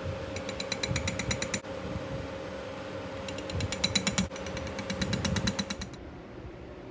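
A metal spatula stirring hot plastisol in a glass measuring cup, clicking rapidly against the glass in two quick bursts of about ten ticks a second, over a faint steady hum.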